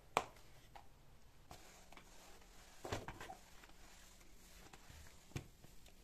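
A few light clicks and knocks of objects being handled: a sharp one just after the start, a short cluster about halfway through, and another near the end.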